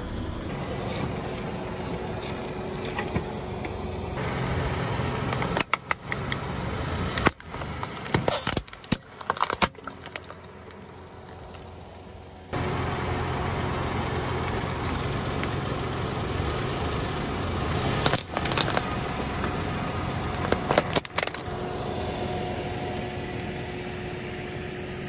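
Car engine running slowly as its tyre rolls over objects on asphalt, with two stretches of sharp cracking and snapping, about six to ten seconds in and again near eighteen to twenty-one seconds, as small plastic containers and other items break under the tyre.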